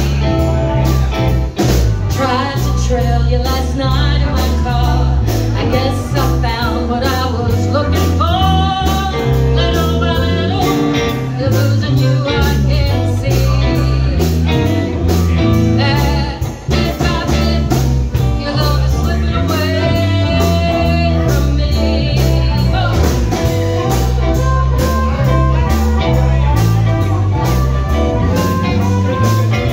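Live blues band playing: harmonica over electric guitar, electric bass and drums, with a woman singing.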